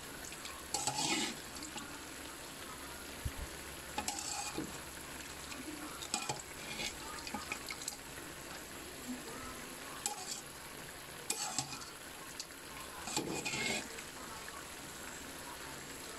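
Pieces of duck meat frying in a metal wok. Short, irregular scrapes of stirring against the pan come every second or two over a faint steady sizzle.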